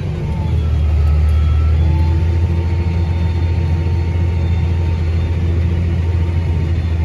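Case IH 7250 combine running steadily: a deep, even engine drone with faint steady whines above it, one of them coming in about two seconds in.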